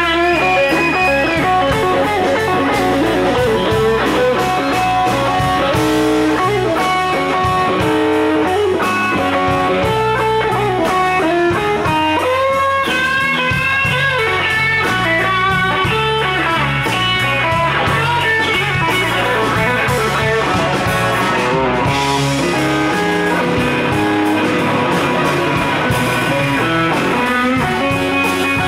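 Live blues band playing an instrumental passage: electric guitar lead lines with bent notes over bass and drums.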